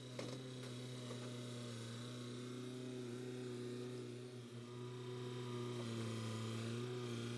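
Excavator's diesel engine running steadily, a low droning hum that rises in level just at the start and holds at one pitch, with a brief dip about four and a half seconds in.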